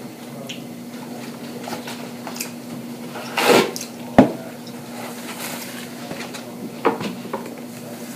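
Crab legs being cracked and picked apart with utensils: scattered clicks and cracks of shell and metal, a short crunch about three and a half seconds in and a sharp knock just after, the loudest sound, over a steady low hum.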